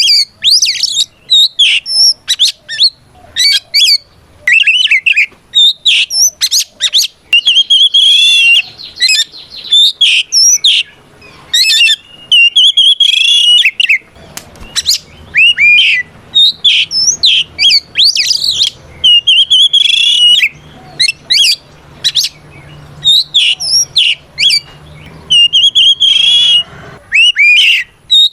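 Oriental magpie-robin singing loud, varied whistled phrases in quick bursts with short pauses between them: its full, challenging song that calls out a rival male.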